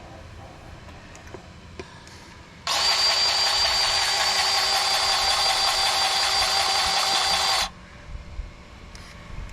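Cordless battery-powered grease gun running, pumping grease into an excavator's grease fitting: a steady motor whine that starts about three seconds in, runs about five seconds and stops abruptly.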